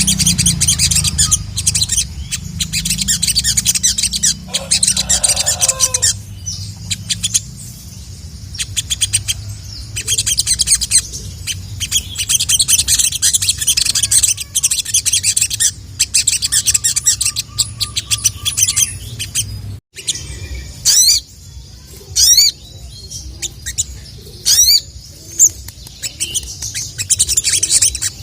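Sogon (sogok ontong) singing hard, with dense, fast bursts of high chirps and chatter separated by short pauses. After a brief drop-out in the middle, a few quick rising whistles cut through.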